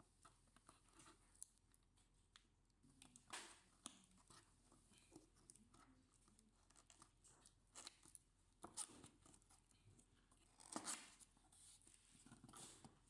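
Faint handling noise: scattered small clicks and a few short rustling scrapes, the loudest near the end.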